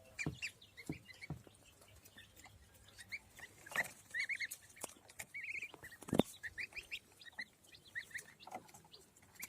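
Day-old goslings peeping: many short, high chirps in small scattered runs, with a few soft knocks among them.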